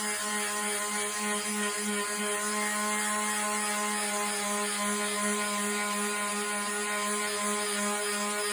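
Electric detail palm sander running steadily with a 2000-grit pad, polishing a lump hammer head to a mirror finish: an even motor hum over the hiss of the pad on the metal.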